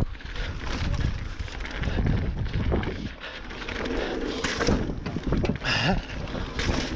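Mountain bike riding fast over rough, bumpy trail: tyres on dirt and rock, rattling and knocking of the bike over the bumps, and wind on the microphone.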